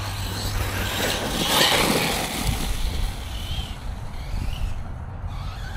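Team Magic E5HX electric RC truck driving over rough ground, its motor whining up and down briefly a couple of times over a steady rush of noise.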